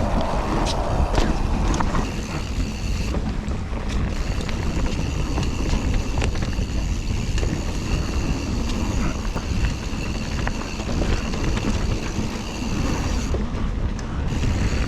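Mountain bike riding down a dirt trail: heavy wind buffeting the action camera's microphone over the roll of the tyres, with frequent small clicks and rattles from the bike.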